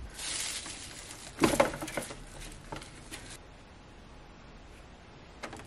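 Plants being handled and pulled from an AeroGarden: leaves and stems rustling, with a cluster of sharp crackles about a second and a half in, then quieter.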